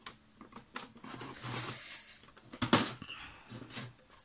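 DVD drive's metal casing scraping against the PC case as it is slid into the drive bay, a bit over a second long, then a sharp knock and a few smaller clicks as it is pushed home.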